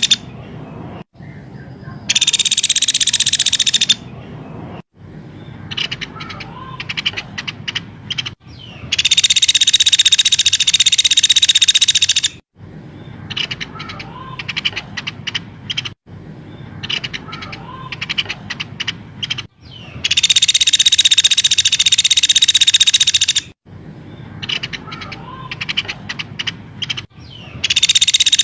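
Recorded songbird calls played on a loop for training a caged bird: dense, high, buzzy trills lasting two to three seconds alternate with runs of short sharp chirps, the pattern repeating about every eleven seconds.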